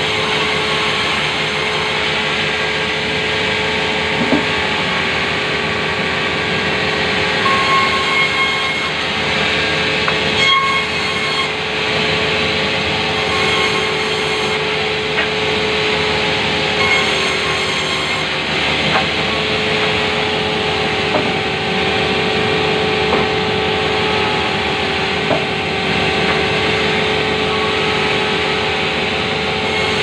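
Sawmill band saw running under its electric motor with a steady hum while timber is fed through it, the blade cutting wood with a continuous rasp. A few short, higher squealing tones come through about eight, ten and seventeen seconds in.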